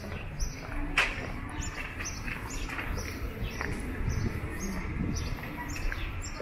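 A small bird chirping over and over, short high chirps about twice a second. A couple of sharp knocks stand out over a steady low background rumble.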